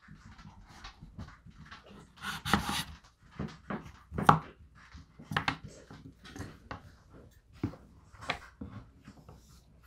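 Victorinox 8-inch chef's knife slicing through sticks of raw butternut squash and knocking on a wooden cutting board: an irregular series of crunching cuts and sharp taps, the loudest tap about four seconds in.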